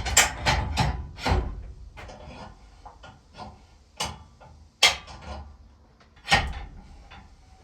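Heavy knocks and clunks of a log being handled by hand onto a portable sawmill: a quick cluster at the start, then three single knocks spaced a second or so apart.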